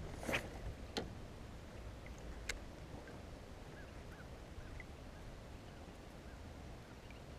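A spinning rod cast with a brief swish, followed by two sharp clicks. Then a faint steady outdoor background with a few faint short chirps.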